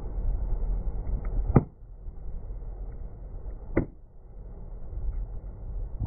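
Toothpaste tubes bursting one after another under a slowly rolling car tyre: three sharp pops about two seconds apart, over a low steady rumble.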